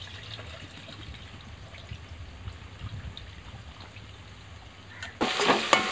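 Liquid poured from a steel bowl into a pot and mixed by hand, faint trickling and splashing. About five seconds in, a sudden loud sizzle as tomatoes and curry leaves fry in hot oil in an aluminium pot, stirred with a crackle of clicks.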